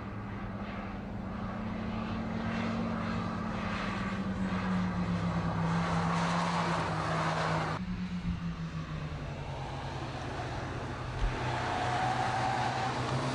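Hyundai Veloster coupes driving at speed: a steady engine drone with tyre and wind noise, the engine note slowly falling. The sound swells to its loudest about six seconds in, breaks off abruptly just before eight seconds, and goes on with another slowly falling engine note.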